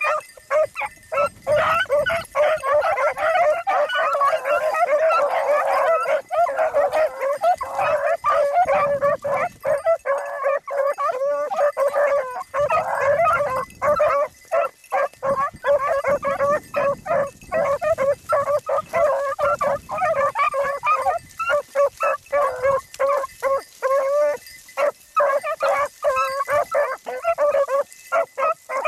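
A pack of beagles baying and yipping while they hunt a rabbit's trail, several voices overlapping. The chorus is thickest in the first several seconds and again in the middle, then thins into shorter, separate barks toward the end.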